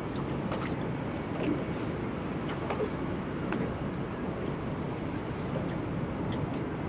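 A small fishing boat on harbour water making a steady low noise, with a few faint ticks and splashes.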